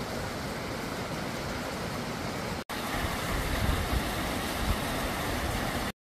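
Steady rush of a rocky stream's water running over rock slabs and a small rapid. It breaks off for an instant about two and a half seconds in, then carries on a little louder with some low rumbling, and cuts off abruptly at the end.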